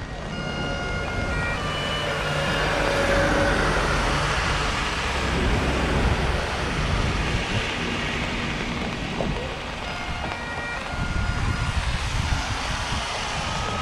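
Road traffic on a wet road: tyres hissing as vehicles pass, swelling a few seconds in. Faint high tones step up and down briefly near the start and again near the end.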